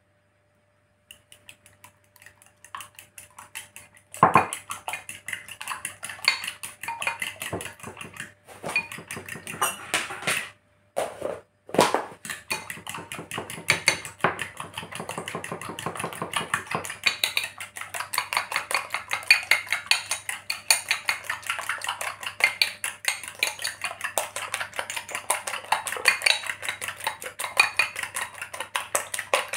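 Eggs being beaten by hand with a metal utensil in a glass bowl: the utensil clinks and taps against the glass. A few scattered taps and one sharp knock come first, then from about twelve seconds in a steady, quick clinking of several strokes a second.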